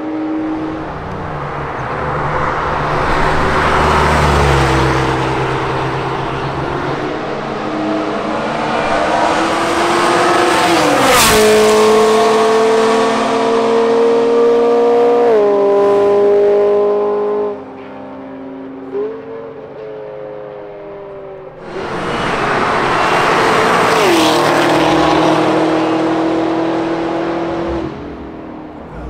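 High-revving sports cars passing at speed on a race-track straight, two loud pass-bys. Each engine note rises as the car approaches and falls in pitch as it goes by: the first about 11 seconds in, the second about 24 seconds in. After the first pass the engine note steps in pitch a few times as the car changes gear.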